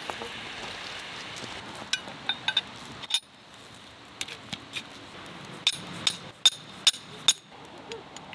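Camp cookware and utensils clinking as they are handled: about a dozen light, sharp metal-and-glass clinks at irregular spacing, over a steady low hiss.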